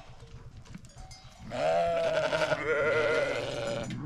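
Sheep bleating: one long, wavering bleat starts about a second and a half in, and a second bleat overlaps it in its latter half.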